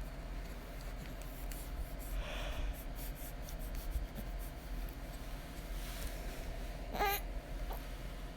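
Cat giving a single short, high-pitched call about seven seconds in, over a low steady hum, with a softer faint noise earlier.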